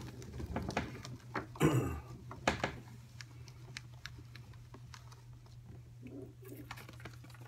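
Light ticks, taps and scratches of hands handling a baby lizard and its cloth bag on a hard tub surface. There are a few louder knocks in the first three seconds, then faint scattered ticks over a steady low hum.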